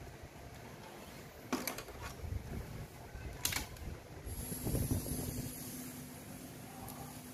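Handling sounds from a Sony CFS-1133S radio cassette recorder being worked on: two sharp knocks or clicks from its plastic case and wiring in the first half. After that, a steady low hum with a faint high whine.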